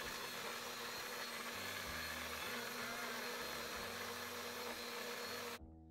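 Single-serve blender running at a steady pitch, its cup pressed down onto the motor base, blending a lime and ice for a margarita. It cuts off abruptly near the end.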